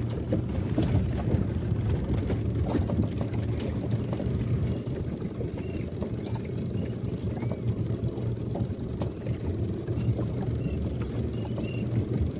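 Yamaha 15 outboard motor running steadily as the small boat trolls, with wind on the microphone and water against the hull.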